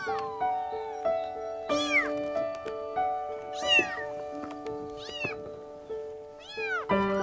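Kittens mewing: about four thin, high mews that rise and fall in pitch, roughly every two seconds. Soft background piano music plays underneath.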